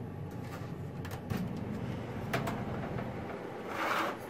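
Cosori food dehydrator's fan running with a steady hum while its door is opened with a few clicks, then a wire mesh tray is slid out on its rails with a brief scrape near the end.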